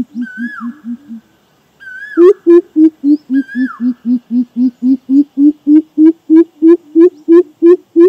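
Greater coucal giving its deep, hollow hooting call: a fast series of low 'hoop' notes, about four a second, that pauses briefly about a second in and then runs on, the pitch stepping down and back up. Three times in the first four seconds a higher whistled note rises and falls over the hoots.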